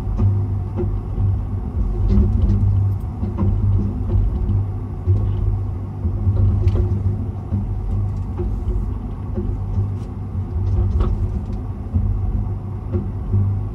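Hiroshima Skyrail suspended people-mover car in motion, heard from inside: a steady low rumble from the running gear with a faint hum and occasional light clicks.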